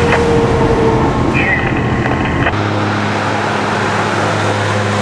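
B-double truck's diesel engine running amid loud rumbling noise; about halfway the deepest rumble eases and a steady low engine hum stands out.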